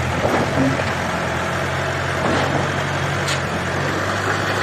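Tata backhoe loader's diesel engine running steadily at low revs, with a couple of faint clicks about halfway through.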